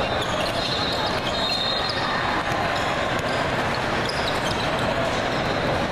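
Basketballs bouncing on a hardwood court amid the steady din of a big hall full of games, with a few short high squeaks.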